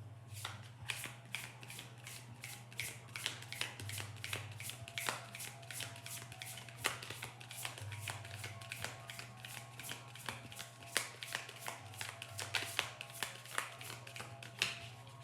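A deck of tarot cards being shuffled by hand, a steady patter of quick card flicks about three a second, over soft background music.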